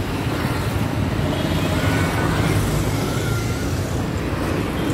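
Steady low rumble of road traffic and vehicle engines running close by.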